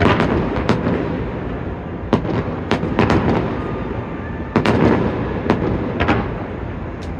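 A fireworks display: a rapid string of sharp bangs over a continuous rumble of shell bursts, with the heaviest bursts at the start and about four and a half seconds in.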